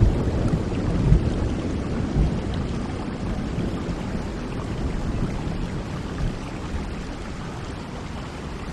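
Steady rain with a low thunder rumble that fades away over the first few seconds.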